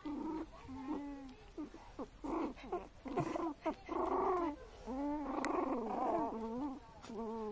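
Young toy poodle puppies whimpering, a run of short whines and squeaks that bend up and down in pitch, some overlapping.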